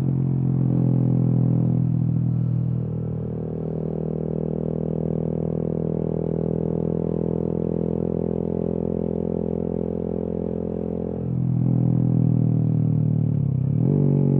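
2020 Honda MSX/Grom 125's single-cylinder four-stroke engine through a Kemimoto aftermarket exhaust, running at steady revs while riding. It eases off about three seconds in, comes back on louder about eleven seconds in, and near the end the pitch drops and then climbs again.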